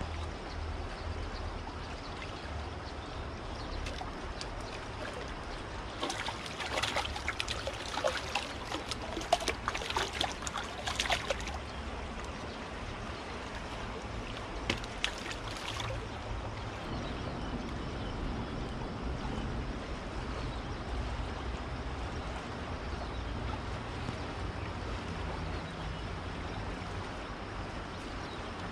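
River water flowing steadily over a low rumble, with clusters of clicks and rustles between about six and eleven seconds in and again around fifteen seconds, from handling a small fish as it is taken off the hook.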